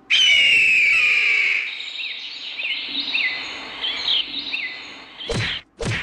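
Birds calling and chirping: a loud overlapping chorus of high calls at first, then a run of short, repeated chirps about every half second. A sudden loud noisy burst comes near the end.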